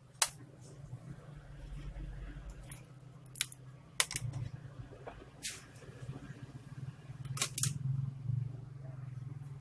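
Scattered sharp clicks and taps of small laptop parts being handled during work on an Acer Aspire E5-473G laptop, about seven in all with a close pair near the end, over a steady low hum.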